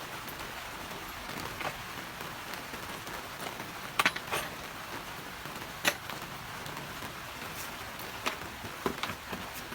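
Steady rain hiss with a scattering of sharp, single drops striking a nearby surface, the loudest about four and six seconds in.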